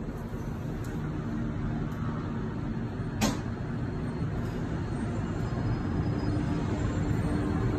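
Steady low rumble of city traffic heard from a high balcony, growing gradually louder, with a single sharp click about three seconds in.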